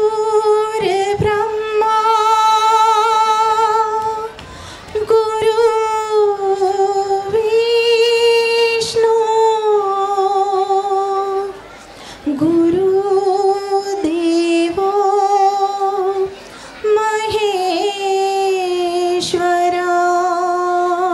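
A female voice singing slow, long-held notes with vibrato, in long phrases broken by short pauses.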